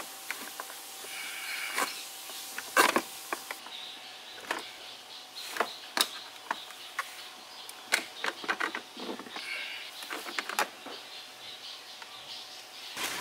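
Irregular clicks, knocks and light clattering as a scooter battery and its metal mounting plate are worked out of the plastic front compartment, with the loudest knock about three seconds in.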